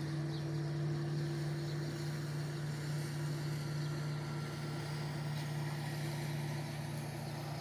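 Outboard motors of small fishing boats running, a steady hum.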